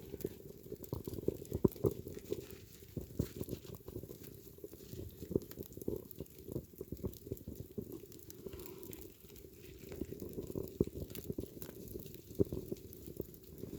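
Footsteps crunching in snow, a run of irregular soft crunches.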